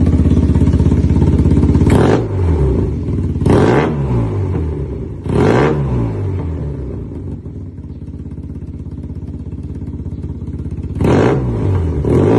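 Yamaha TMAX parallel-twin maxi-scooter engine breathing through an SC-Project titanium full exhaust system, being revved with quick throttle blips. It holds a steady raised idle, then is blipped four or five times, each rev falling straight back to idle, with a longer idle between the third and fourth blip.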